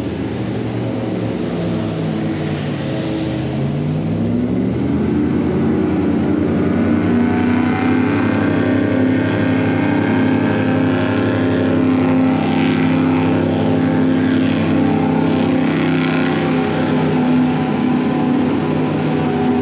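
Tour airboat's engine and propeller running loud as it passes. The pitch dips briefly about two to three seconds in, then rises again and holds steady.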